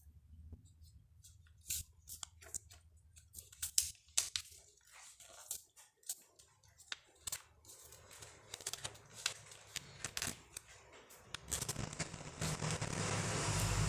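Sheet of paper being handled and folded into a paper airplane: scattered sharp crinkles and creasing clicks. Near the end a steady rushing noise with a low hum swells in and becomes the loudest sound.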